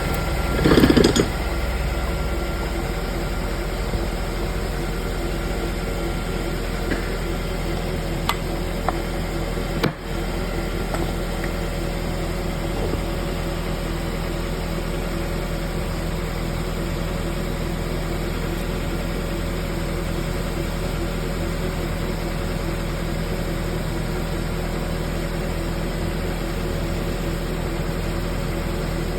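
Steady mechanical hum from a car's worn front right wheel bearing as the wheel turns, with a sharp click about ten seconds in.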